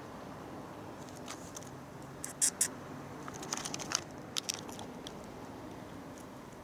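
Cat eating meat-flavoured food off the ground: scattered short, crisp clicks and crunches of chewing, loudest about two and a half seconds in and again around four seconds.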